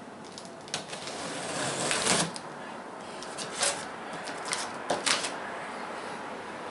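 Handling noises from the packaging, likely the cardboard box: a few sharp, irregular clicks and knocks, with a louder rustle lasting about a second near the start.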